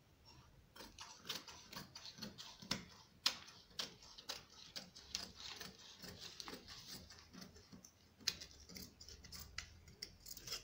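Tailor's scissors cutting through a double layer of cloth: a steady run of short, sharp snips, about two a second, as the blades close cut after cut.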